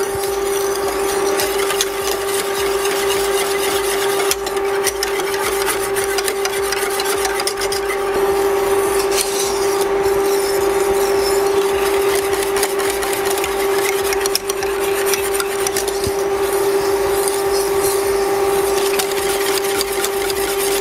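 Wire whisk scraping steadily around the bottom and sides of a stainless steel saucepan of thickening pastry cream, keeping it from catching and burning, over a steady hum.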